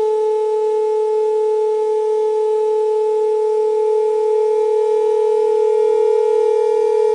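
A loud, steady pure tone from a loudspeaker, at about the pitch of concert A, with fainter overtones. It is aimed at a wine glass to drive it at its resonant frequency. The tone begins to waver slightly in loudness in the second half.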